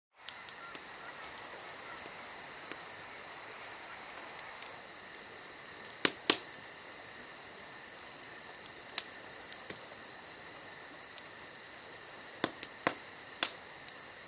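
A steady high-pitched insect trill over a faint hiss, with scattered sharp clicks throughout; the loudest clicks come as a pair about six seconds in and as a cluster near the end.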